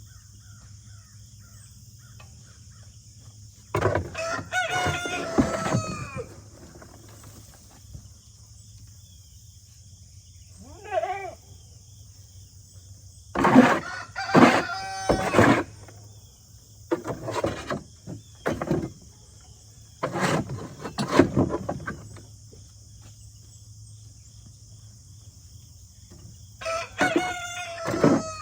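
A rooster crowing several times, with pauses of a few seconds between the calls.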